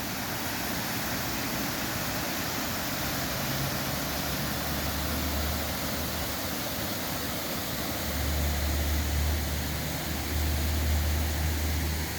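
Waterfall rushing steadily, the brook running high after rain. A low rumble comes in under it about a third of the way through and again, a little louder, in the second half.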